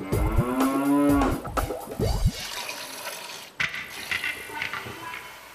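Cattle mooing: one long moo at the start, its pitch rising and then falling, followed by a few sharp knocks. In the second half comes a fainter, thin noise as water is poured into a steel bucket of milk.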